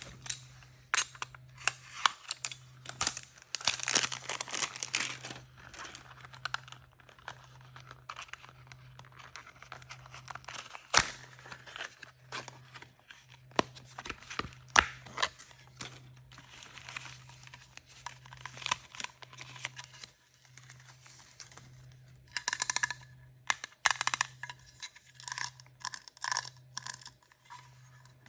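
Surprise-toy packaging being handled and torn open by hand: tearing and crinkling of wrappers, with scattered sharp clicks and taps.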